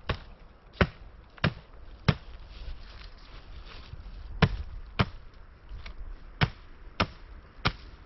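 Wood being chopped: sharp strikes about two-thirds of a second apart, four in the first two seconds, a pause of about two seconds, then five more.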